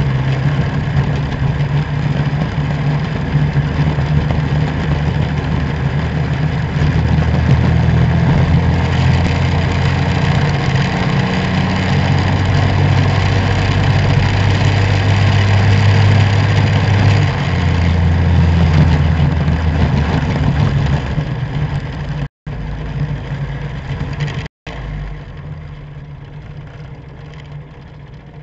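Racing go-kart's engine heard from on board at speed, its pitch climbing along a straight, dipping briefly, then climbing again before falling away as the kart slows off the throttle. The sound cuts out completely twice for a moment near the end.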